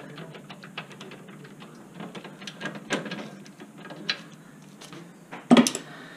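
Ratchet wrench clicking in short irregular runs as a nut is turned down, with one sharp metal knock about five and a half seconds in.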